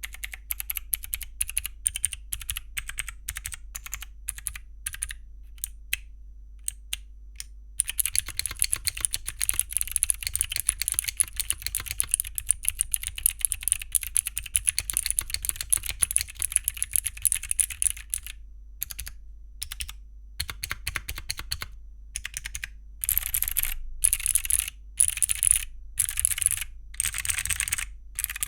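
Mechanical keyboard with Akko Creamy Cyan clicky switches on a copper plate with no foam, ABS Cherry-profile keycaps, being typed on: single separate keystrokes at first, then a long stretch of fast continuous typing, then scattered keystrokes and a few short dense bursts of typing near the end.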